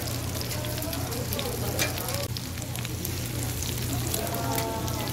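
Egg-battered jeon patties sizzling in oil on a flat griddle, with a steady frying hiss and scattered sharp clicks and scrapes of metal spatulas turning them on the griddle.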